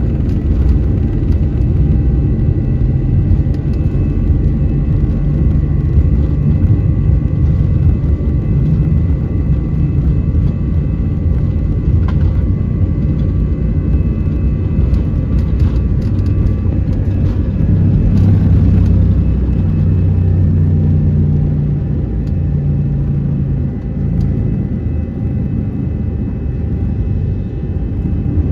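Airbus A321 airliner on its takeoff roll, heard inside the cabin: a loud steady rumble of the jet engines at takeoff thrust and the wheels running on the runway. The rumble eases a little near the end as the aircraft lifts off.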